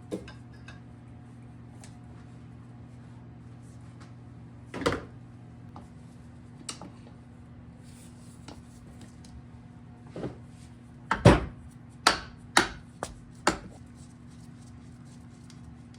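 Scattered sharp knocks and clatter of hand tools and parts while a Yamaha PW50 mini dirt bike is taken apart. They come one at a time at first, then in a quick run of louder knocks about three quarters of the way through, over a steady low hum.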